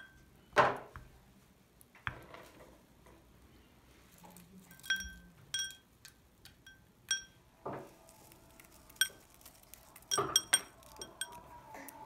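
A spoon knocking and clinking against glass bowls as yogurt and granola are spooned in. The loudest sound is a dull knock about half a second in. A run of short, bright clinks that ring briefly follows, from about five to eleven seconds in.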